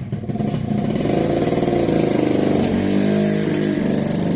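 A motorcycle engine running, with a short rev that rises and falls about three seconds in.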